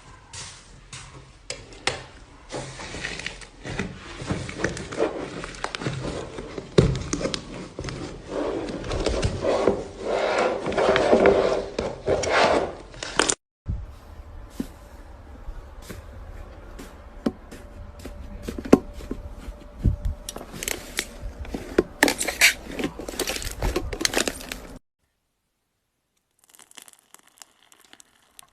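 Slime being squeezed and stretched by hand: dense, irregular crackling and popping. It stops briefly about halfway through and goes silent for a couple of seconds near the end before fainter handling resumes.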